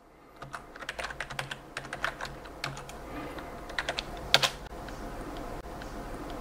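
Typing on a computer keyboard: a quick, uneven run of key clicks, ending with one louder keystroke about four and a half seconds in. After that there is a steady low background hum.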